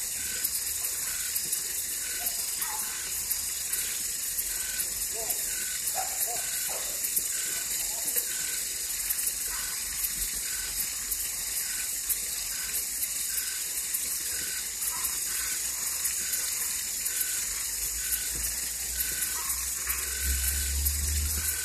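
Night chorus of frogs and treefrogs: a dense, high-pitched rattling buzz with a short call repeating about once a second. A low rumble grows louder near the end.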